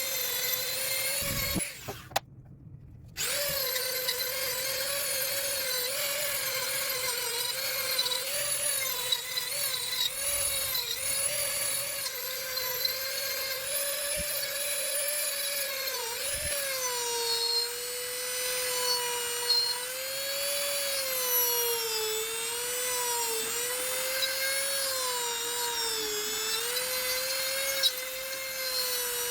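Wood lathe running with a steady whine whose pitch wavers and dips as the turning tool bears on the spinning wood. The sound drops out briefly about two seconds in.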